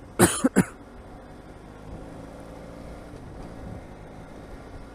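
A man coughs twice, loud and close to the microphone, in the first second. After that the motorcycle's engine and road noise run steadily while it cruises in traffic.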